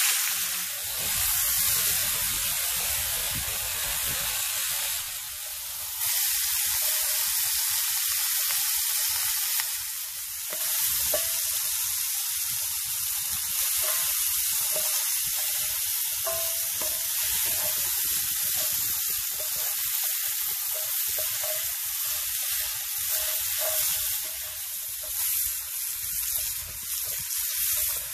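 Coconut rhinoceros beetle larvae and sliced garlic sizzling steadily in hot oil in a cast-iron skillet, stirred now and then with a wooden spatula.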